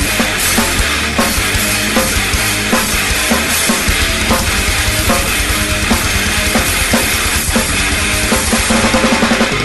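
Loud heavy band music with the drum kit to the fore, and a fast kick-drum pattern coming in about four seconds in.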